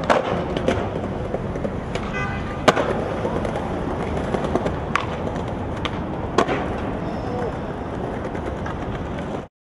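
Skateboard wheels rolling on pavement, with several sharp clacks of the board, the loudest about a third of the way in. The sound cuts off suddenly near the end.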